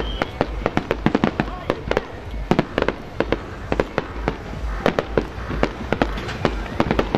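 Aerial fireworks bursting: a fast, irregular string of sharp bangs and crackles. A whistling shell's falling whistle dies away just at the start.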